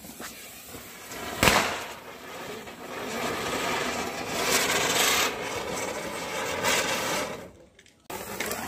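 A sharp bang about a second and a half in, then a ground fountain firework hissing and crackling as it sprays sparks for several seconds, dying away near the end.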